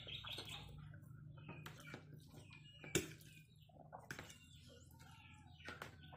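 Quiet spaghetti-eating sounds: slurping and chewing, with a metal fork clicking and scraping on the plate as noodles are twirled, and one sharper click about three seconds in.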